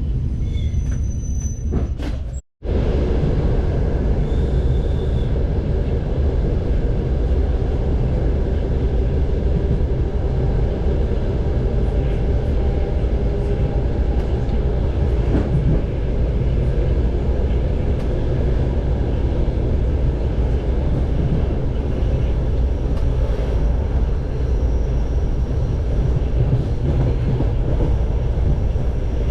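Steady running noise of a moving passenger railcar hauled by a diesel locomotive, heard from inside the carriage: a continuous low rumble of wheels on rails. The sound cuts out completely for a moment about two and a half seconds in.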